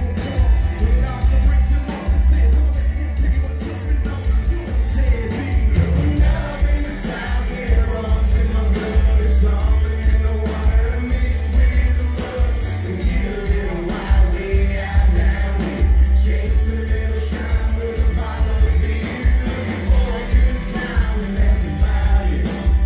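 Live band playing a song: a man singing lead over guitars, with a heavy bass and a steady beat.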